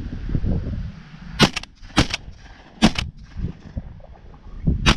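Shotgun fired several times in quick succession: sharp reports about one and a half, two and three seconds in, and another near the end, over a low rumble of wind on the microphone.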